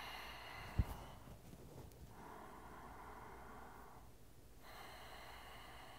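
A person's slow, audible breathing, about three long breaths, faint; a short low thump about a second in.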